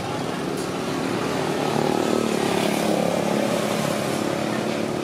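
A motorbike engine running, growing louder to a peak about midway and then easing off, as a motorbike passes on the street.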